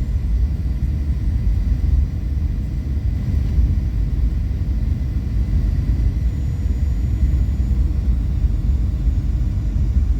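Steady low rumble of Boeing 737-800 cabin noise, with a faint thin tone held high above it.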